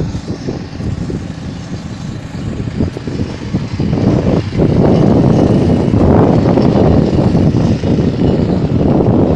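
Wind buffeting a phone's microphone: a loud, gusting low rumble that grows stronger about halfway through.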